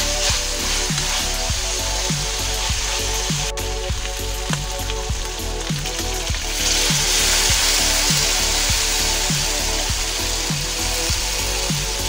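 Ground pork and diced ham sizzling in a hot wok while being stirred. About six and a half seconds in the sizzle turns louder and brighter as canned sliced mushrooms are poured in. Background music with a steady beat plays underneath.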